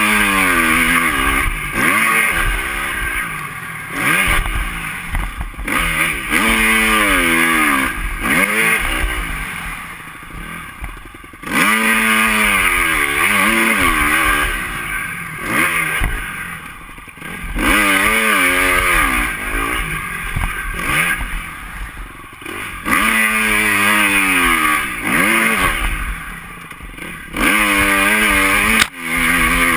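2010 KTM 250 SX-F's single-cylinder four-stroke engine being ridden hard off-road: the pitch climbs again and again as the throttle is opened and the bike runs up through the revs, then drops away as the rider shifts or backs off. Loud stretches of throttle alternate with several brief quieter lulls.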